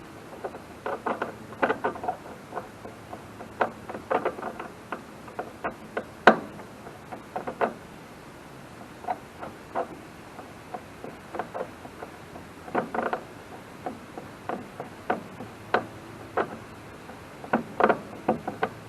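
Irregular metallic clicks and clinks, some in quick little clusters, from hand tools and fittings being worked while a fuel tank is fitted.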